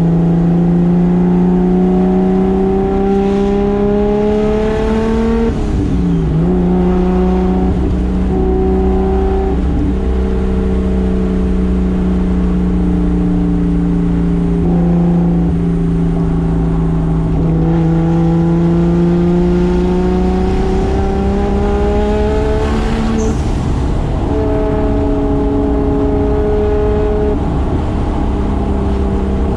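Single-turbo 2JZ inline-six in a Toyota Soarer under way, the engine pitch climbing steadily through each gear and dropping at the shifts. This happens several times, about every four to six seconds, with a last drop near the end.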